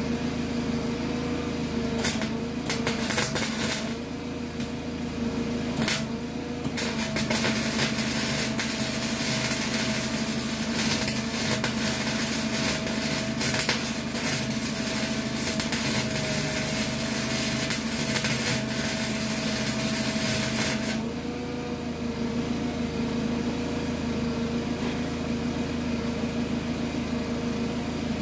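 A small 120-volt wire-feed welder laying weld on a bus floor patch: a few short bursts of arc crackle, then one continuous bead of about fourteen seconds that stops about 21 seconds in. A steady motor hum runs underneath and rises in pitch while the arc is lit.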